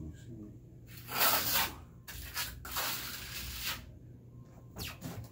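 Trowel spreading and scraping cement base coat across a wall: one loud scraping stroke about a second in, then a longer stretch of lighter smearing strokes, and a short scrape near the end.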